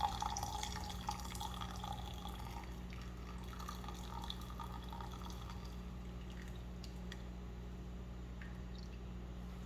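Hot coffee dripping and trickling through a cloth coffee filter into a bowl, with a few faint clicks, over a steady low hum.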